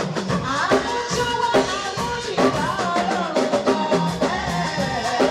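Background music with drums and sustained instrument tones.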